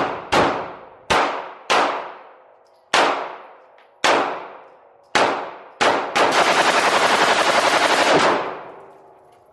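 Rifle fired in an indoor range booth: about eight single shots at uneven intervals of roughly half a second to a second, each with a long ringing echo. About six seconds in, a rapid full-automatic burst of about two seconds follows and then fades out.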